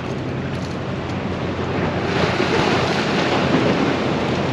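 Sea surf washing against a rocky shore, with wind buffeting the microphone; the wash swells about two seconds in.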